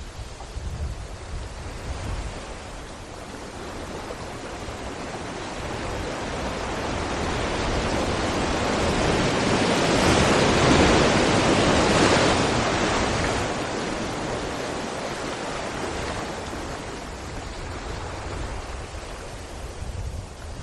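Sea waves breaking against rocks: a steady wash of surf that builds to one large wave crashing about halfway through, then recedes into rumbling surf.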